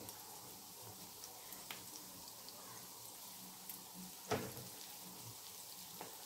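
Yeast-dough pirozhki frying in hot oil in a frying pan: a faint, steady sizzle with scattered small crackles, and one louder click about four seconds in.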